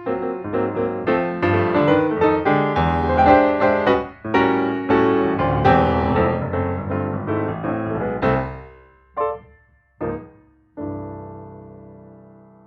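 Background piano music: a busy run of notes that fades out about eight seconds in, two short chords, then a last chord left ringing and dying away.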